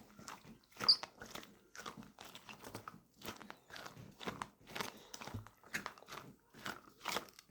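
A fidget bracelet handled close to the microphone for ASMR: irregular small clicks and crackles, several a second.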